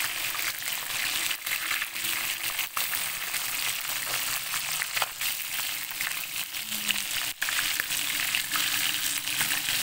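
Oil sizzling and crackling steadily around whole fish frying in an aluminium wok, with a few sharp taps and scrapes of a metal spatula against the pan as the fish are turned.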